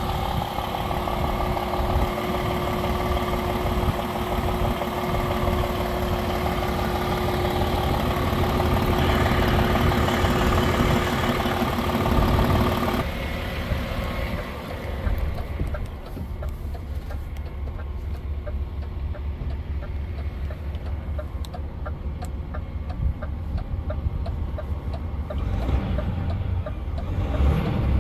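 DAF XF 480's 12.9-litre six-cylinder diesel (PACCAR MX-13) idling steadily, first heard from in front of the truck. About halfway through it becomes a muffled low rumble heard from inside the cab.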